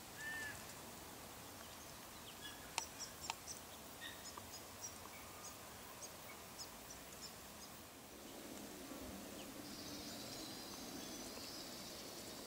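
Faint bushland ambience with birds: a short arched bird call at the start, then scattered short high chirps. About two-thirds of the way in, a steady high trill sets in over a low hum.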